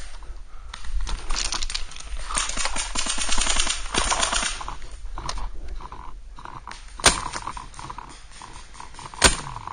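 Paintball markers firing: a fast string of shots lasting a few seconds, then two single sharp pops near the end.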